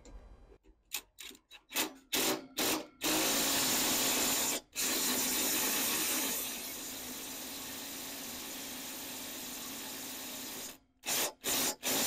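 Ryobi cordless impact driver with a long socket extension, doing up a Loctited bolt on a truck's chassis frame. It gives a few short trigger blips, then runs for about eight seconds, dropping in level about halfway through, then four short bursts near the end as the bolt is nipped tight.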